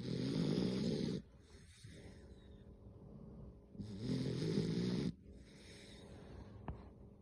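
Snoring: two loud snores about four seconds apart, each lasting just over a second, with quieter breathing between them.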